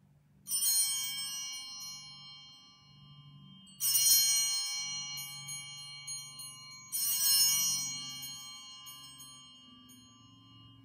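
Altar bells rung three times at the elevation of the chalice, each ring a bright jangle of several bell tones fading over two or three seconds. The ringing marks the consecration and elevation of the chalice.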